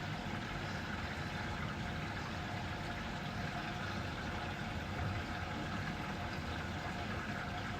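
Washing machine running a quick-wash cycle: a steady hum of its motor with a faint rush of water.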